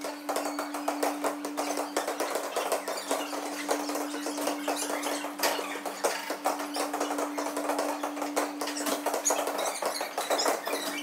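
Large gymnasium ambience: a steady electrical hum under a dense, irregular patter of light taps and clicks that never stops.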